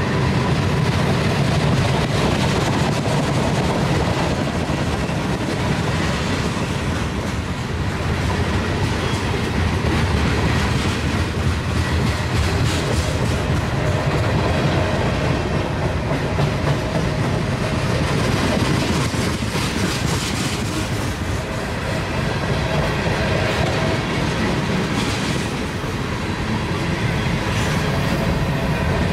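Freight train of covered hoppers and tank cars rolling past at close range: a steady rumble of steel wheels on rail, with the clickety-clack of wheels over rail joints.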